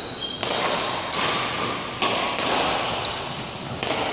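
Badminton rackets striking a shuttlecock in a rally: four or five sharp hits about a second apart, each ringing on in the echo of a large hall.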